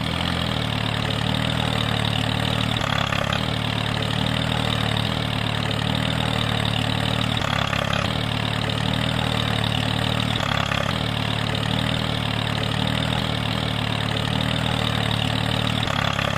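Tractor engine running steadily at an even pace, with no revving.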